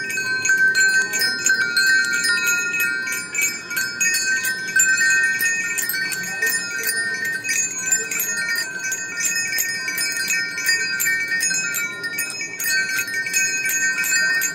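Background music played on ringing chimes: several steady high tones held under many quick, light strikes.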